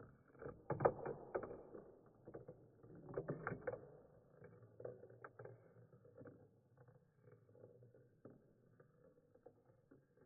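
Marbles rolling along a small marble run track: a rolling rattle with many light clicks and knocks, busiest in the first four seconds, then fainter.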